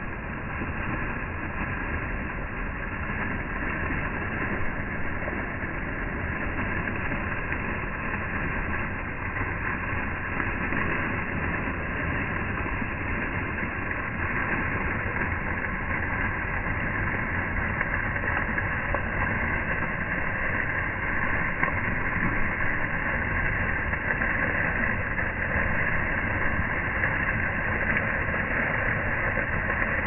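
A fountain's water jet splashing steadily into its stone basin, growing louder in the second half.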